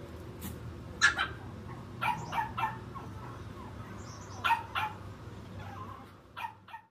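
A dog barking: short, sharp barks in small groups of two or three, over a steady low hum.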